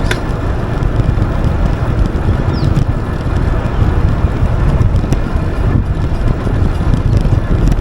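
Wind rumbling on the microphone while riding an Aventon Level 2 e-bike, with a few sharp clicks at uneven intervals from the bike's drivetrain. The click comes on some pedal strokes and not others, with or without pressure on the pedals, and the rider feels it through the pedals and suspects something in the crank.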